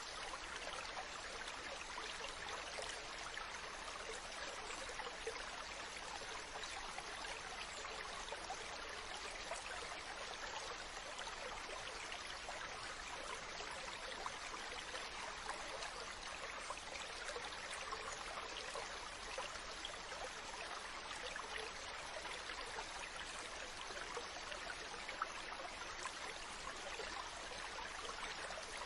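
A shallow stream running and splashing over rocks, a steady gurgle with fine flickering detail and no change throughout.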